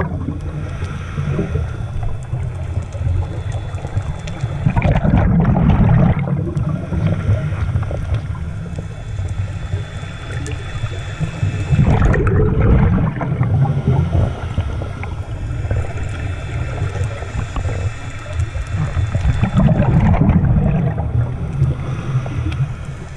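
Diver's scuba regulator heard underwater: three rushes of exhaled bubbles, about seven seconds apart, with a steadier low rumble between them.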